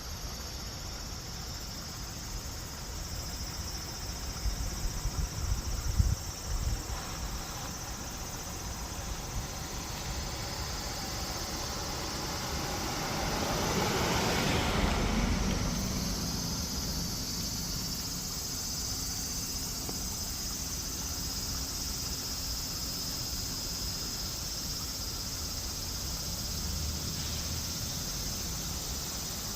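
Steady high insect chirring throughout, with a few low knocks a few seconds in and a broad rushing noise that swells and fades about halfway through.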